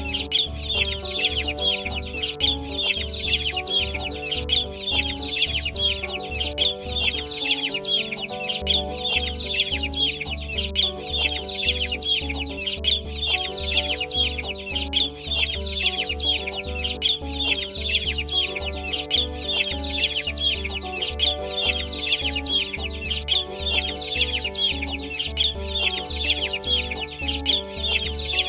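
A crowd of chicks peeping constantly in dense, overlapping high chirps, over background music with a steady beat. The beat drops out for about a second near eight seconds in.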